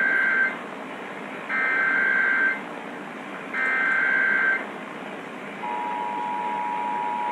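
Emergency Alert System tones over AM radio: three one-second bursts of the SAME data header's rapid digital warble, then the steady two-tone EAS attention signal, which starts about five and a half seconds in and announces a tornado warning. A steady hiss of radio static runs underneath.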